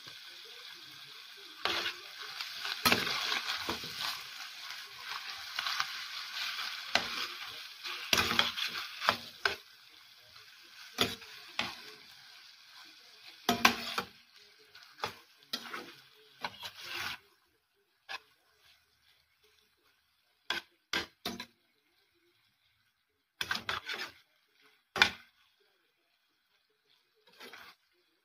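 Beef strips sizzling in a stainless steel pan while they are stirred, the utensil scraping and knocking against the pan. The sizzle dies away about halfway through, leaving only a few scattered scrapes and taps.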